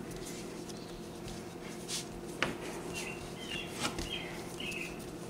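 Hands kneading bread dough on a plastic mat: faint soft knocks and a few short sharp clicks, the loudest about two and a half seconds in, over a steady low hum. A few faint chirps come near the middle.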